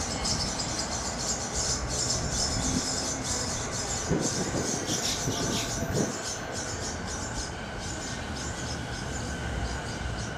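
JR Keiyo Line E233-series electric train running into the station, with wheel and rail noise as it draws up along the platform.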